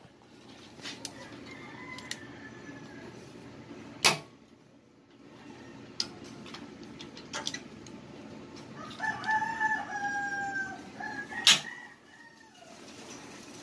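A rooster crowing once, a drawn-out call of about two seconds in the second half, with two sharp knocks, one about four seconds in and a louder one just after the crow.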